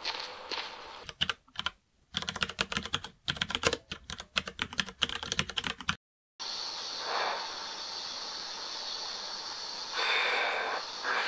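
AI-generated sound effects from example videos: a rapid, uneven run of clicks like keyboard typing, then, after a brief silent cut, a steady hiss that swells twice.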